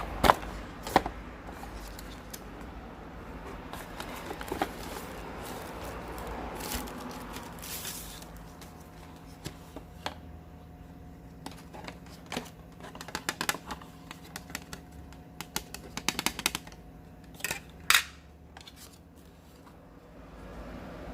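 Scattered sharp clicks and taps from hands handling a smartphone and its box and packaging, with a short rustle about eight seconds in and a quick run of clicks near the end.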